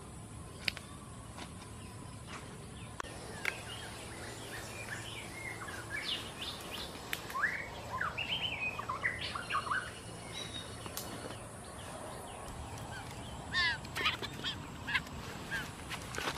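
Birds chirping and calling in many short notes, thickening from about four seconds in, with a run of quick repeated calls near the end. A few sharp snaps sound early on.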